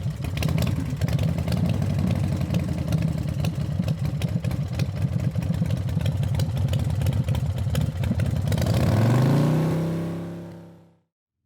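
Harley-Davidson V-twin motorcycle engine idling with a rapid, uneven beat, then revved near the end, its pitch rising before the sound fades out.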